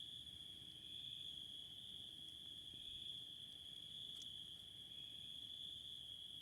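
Crickets trilling faintly in one steady, unbroken high tone, with a faint single crackle from a campfire about four seconds in.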